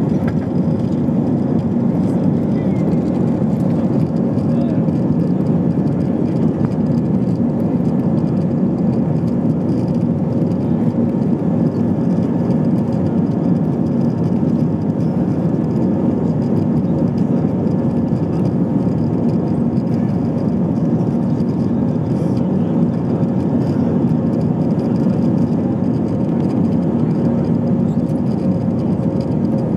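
Cabin noise inside an Airbus A320 climbing just after takeoff: the jet engines and the air rushing past make a steady, even noise with a low hum and a few faint steady tones.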